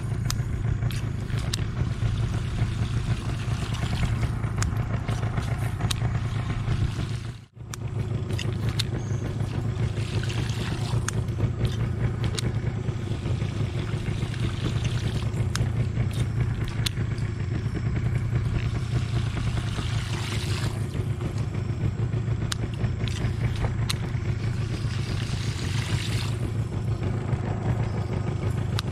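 Small boat engine running steadily at low revs, with occasional sharp light clicks over it and a brief gap about seven and a half seconds in.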